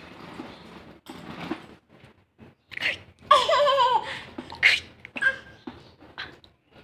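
A toddler's wordless vocal sounds: short breathy bursts, and a little past three seconds in, a loud, high, wavering squeal lasting about a second.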